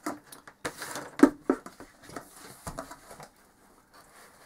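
Handling noise from a cardboard crisps-tube housing being turned and shifted on a workbench: an irregular run of knocks, clicks and short scrapes, the loudest knock about a second in.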